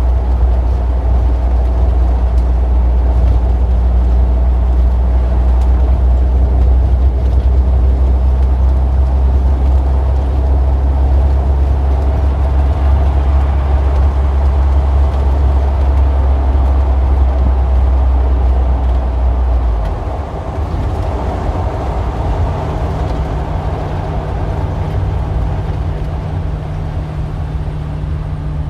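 Street traffic, dominated by a heavy vehicle's engine running with a steady deep hum. The hum drops away about twenty seconds in, leaving lighter traffic noise.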